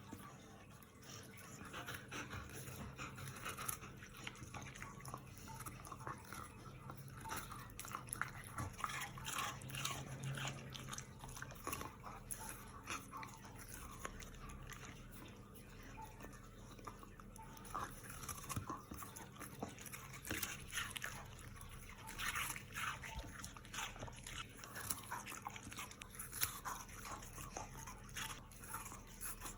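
A puppy chewing, with irregular small crunches and clicks that keep up throughout.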